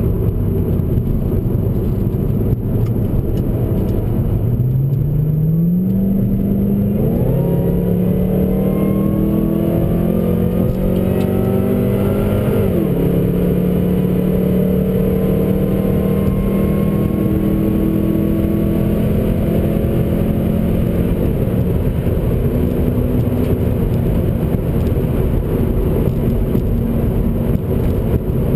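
Supercharged V8 of a 2010 Roush 427R Mustang heard from inside the cabin, accelerating hard with its note climbing from about four seconds in, dropping sharply on an upshift a little past halfway, then holding a steady pitch at high speed before easing off near the end. Heavy wind and road noise run under it throughout.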